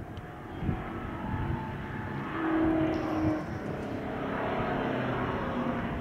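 A muscle car's engine running hard, swelling to its loudest about two and a half to three seconds in, then carrying on a little quieter.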